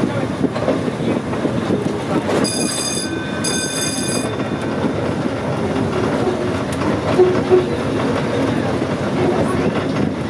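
Volk's Electric Railway car running along its track, heard from on board: a steady rumble and clatter of wheels on the rails. A high-pitched tone sounds twice in quick succession about two and a half seconds in.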